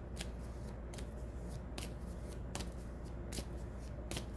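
Tarot deck being shuffled by hand: a series of short, crisp card clicks, a little more than one a second.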